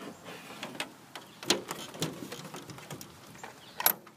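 Scattered light clicks and knocks, with sharper ones about a second and a half in, at two seconds and a loud one near the end.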